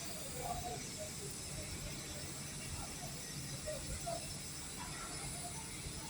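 Steady hiss of a TIG (GTAW) welding arc.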